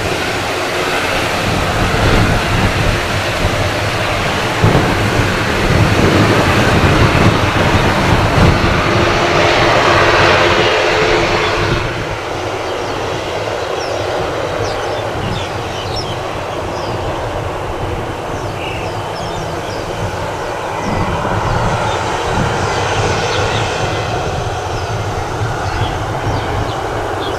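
Jet airliner noise from a Japan Airlines Boeing 787-9, swelling to a loud peak about ten seconds in. It cuts off abruptly at about twelve seconds to a quieter rumble from an EVA Air Airbus A321 with faint short high chirps, which swells again for the last few seconds.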